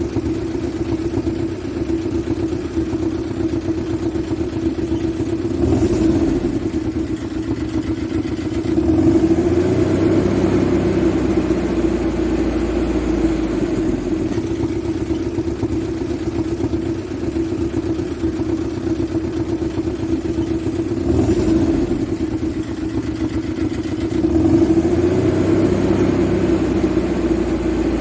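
A vehicle engine running with a steady drone, getting briefly louder about six seconds in and again about twenty-one seconds in, with longer louder stretches in between.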